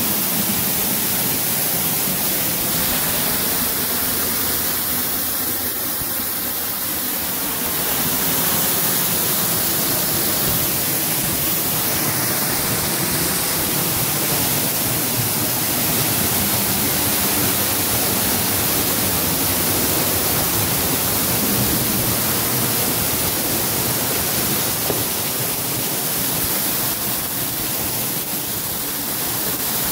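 Rain-swollen waterfall heard from behind the falling water: a loud, steady rush of water pouring off a rock ledge.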